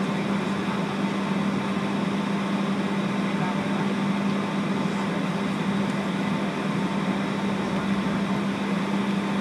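Cabin noise of a Boeing 757 taxiing on the ground: a steady rush from the engines at idle and the cabin air, with one constant hum running through it.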